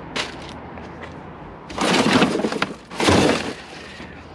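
Trash being rummaged through in a dumpster: plastic bags and loose debris rustling and crackling in two loud bursts, the first about two seconds in and a shorter one about a second later.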